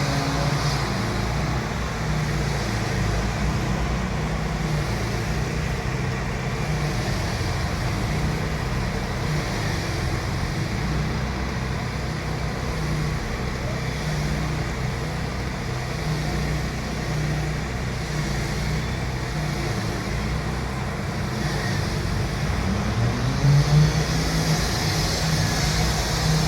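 A motor vehicle engine running steadily, with a low hum and its pitch rising near the end.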